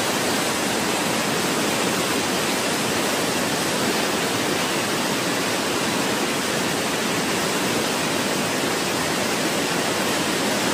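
Floodwater of a swollen, muddy river rushing through a town and under a bridge: a loud, steady, unbroken rush of water.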